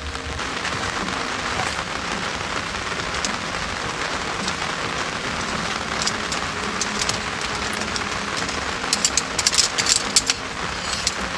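Steady rain falling, with a cluster of sharp ticks of drops landing near the end.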